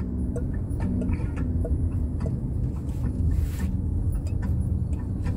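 Steady low rumble of a Honda car's engine and tyres, heard from inside the cabin while driving slowly.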